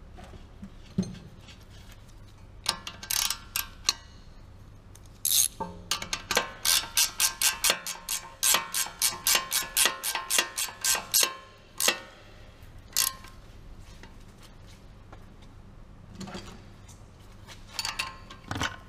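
Sharp metallic clicks from tool work on metal parts, each ringing briefly. A few come scattered, then a steady run of about four a second lasts some five seconds, then a few more follow near the end.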